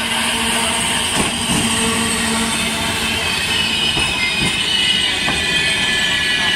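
A Trenitalia regional passenger train rolls slowly past, coming into the station. Its running gear gives a steady high metallic squeal, with a few separate clacks as the wheels cross rail joints.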